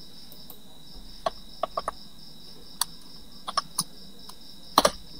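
Computer mouse and keyboard clicks while editing code, a dozen or so short sharp clicks scattered through, the strongest near the end. Underneath is a faint steady, pulsing high-pitched whine.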